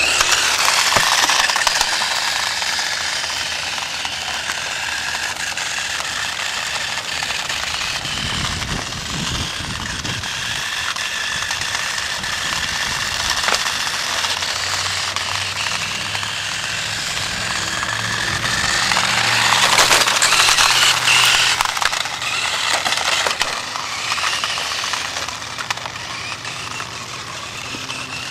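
Small electric motors and plastic gears of a toy RC car running with a rattle, with a steady whine and a louder stretch about twenty seconds in.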